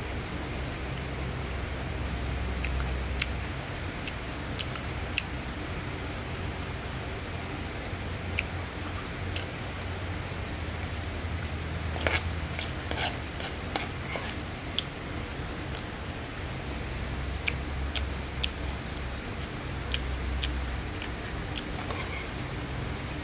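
Metal spatula scraping and tapping against a non-stick frying pan while stir-frying fried rice: scattered sharp clicks, with a quick run of them about halfway through, over a steady frying hiss.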